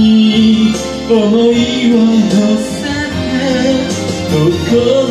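A man singing long, held notes into a microphone, with guitar accompaniment.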